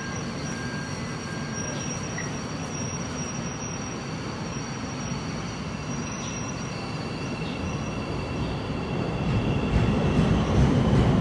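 CTA 5000-series elevated 'L' train standing at the platform with a steady running hum and thin high tones, then pulling out. Its running noise grows louder over the last few seconds as it gathers speed past the platform.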